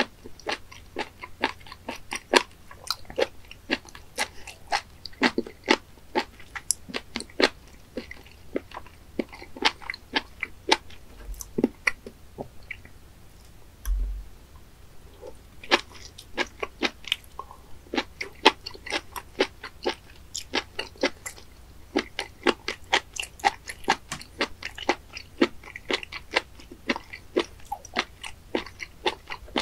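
Close-miked chewing of raw spoon worm sashimi: crisp, wet crunching and clicking bites several times a second, thinning out briefly near the middle, where a single dull knock is heard.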